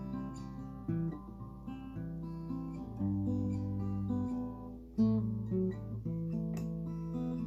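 Acoustic guitar playing a chord accompaniment, its notes ringing into one another over a low bass note that changes every second or two.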